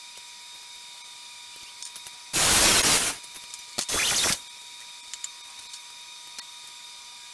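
Power saw cutting through a wooden board: two short, loud bursts of cutting noise about a second and a half apart that start and stop abruptly.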